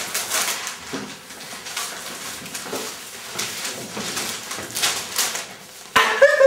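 Newspaper rustling and crinkling as it is snatched from a desk, shaken open and unfolded. A voice cuts in suddenly near the end.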